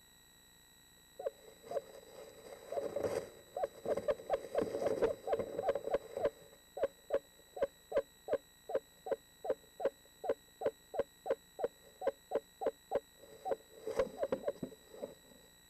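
Eastern screech owl in a nest box giving a long series of short, even hoots, about three a second. The notes crowd together and overlap for a few seconds near the start.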